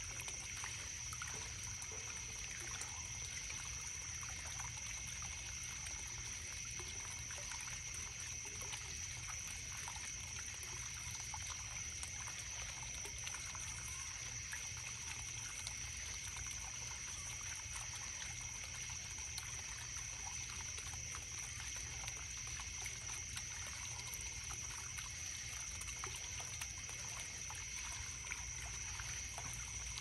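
Water trickling in a stream under a steady, high-pitched chorus of crickets chirping.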